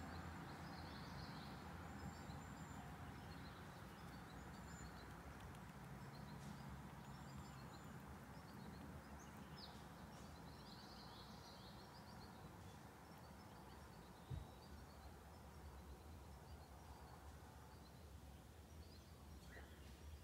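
Faint outdoor ambience: a steady low hum with small birds chirping here and there. A single soft thump about fourteen seconds in.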